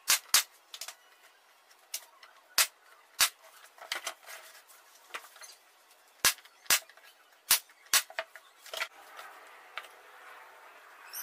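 Sharp, irregular wooden knocks and clacks, about a dozen, as 9 mm plywood panels of a box are handled and fitted together.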